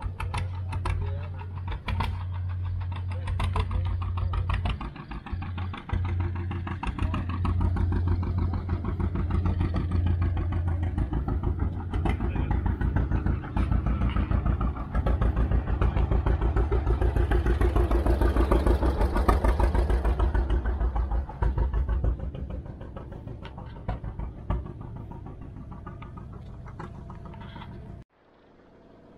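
Antique tractor engine running close by with a rapid, even firing beat, growing louder toward the middle and fading away over the last several seconds before cutting off suddenly near the end.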